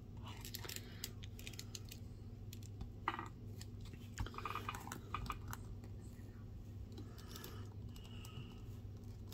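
Small plastic clicks, scrapes and rustles of a Mythic Legions action figure being handled, as a sword is worked into its tight-gripping hand. A low steady hum runs underneath.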